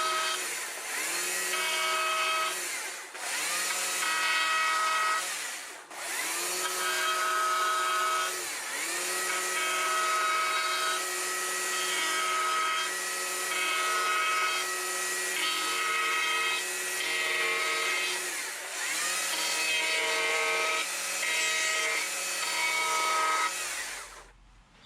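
Battery-powered carving chainsaw with a dime-tip bar and thin 43-gauge chain, cutting letters into a wooden sign board. It is run in repeated bursts: each trigger pull whines up to speed and winds down, with one long run in the middle, and it stops just before the end.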